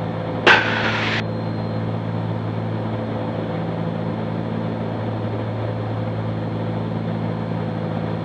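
The twin piston engines and propellers of a Cessna 310Q droning steadily in the cockpit, heard as a low, even hum. About half a second in there is a short burst of hiss that cuts off sharply.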